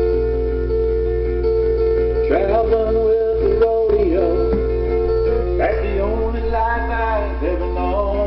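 Background music: a song with sustained instrumental chords, and a singing voice coming in about two seconds in, over a steady low hum.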